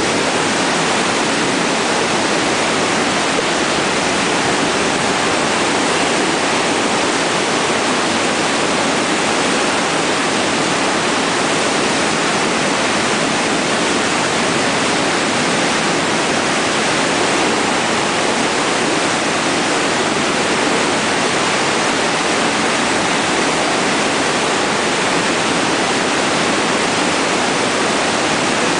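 The Niagara River's Class 6 whitewater rapids rushing loudly and steadily, a dense, unbroken hiss of breaking waves that never lets up.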